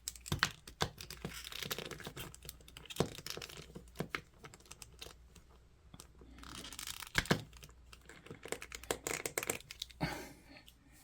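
Hands handling a small plastic action figure, with scattered plastic clicks and rubbing as its foot is worked loose.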